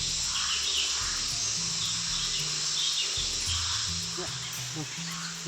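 Steady, high-pitched chorus of insects, with faint voices in the background.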